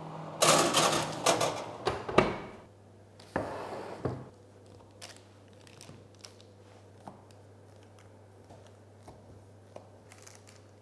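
Metal baking pan sliding onto a wire oven rack, with rattling and a sharp clack about two seconds in, then a shorter scrape. Faint scattered clicks follow.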